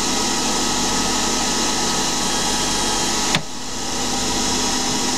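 Hercus PC200 CNC lathe running with its spindle turning a small brass part, a steady hiss with several fixed whining tones. A sharp click comes a little over three seconds in, after which the sound drops and then builds back up.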